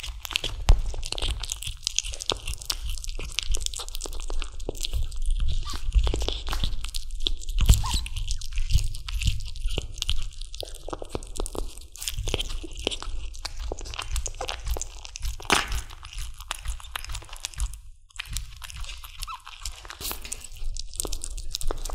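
Kitten gnawing and chewing on a raw chicken drumstick: a continuous run of small, quick crunching bites close to the microphone, with a brief pause about eighteen seconds in.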